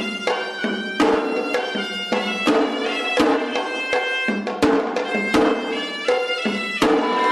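Hevisi, Sri Lankan temple ritual music: drums struck in sharp, uneven strokes under a continuous, nasal reed-pipe (horanewa) melody.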